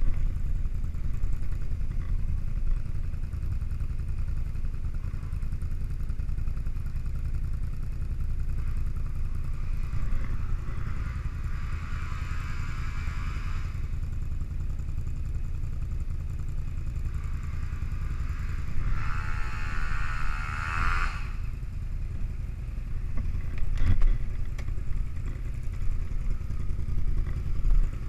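ATV engines running on a trail stop, a low steady rumble throughout. Twice, about ten and eighteen seconds in, a louder, higher engine sound swells for a few seconds. There is a single sharp knock near the end.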